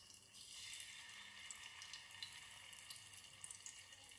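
Faint sizzling of paneer cubes frying in hot oil, with scattered small crackles.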